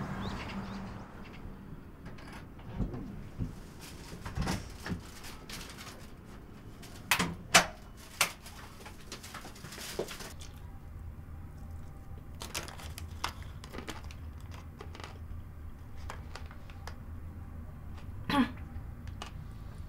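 Quiet room tone with scattered small knocks and clicks, the loudest a cluster of three sharp knocks about seven to eight seconds in. A low steady hum sets in about halfway.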